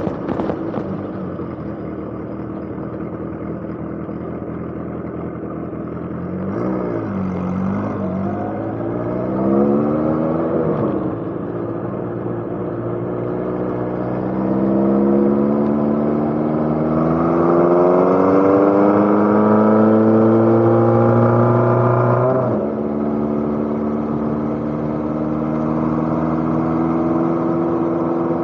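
Motorcycle engine under way: its pitch dips and rises a couple of times, then climbs steadily for about ten seconds as it accelerates, drops suddenly at a gear change, and holds steady after.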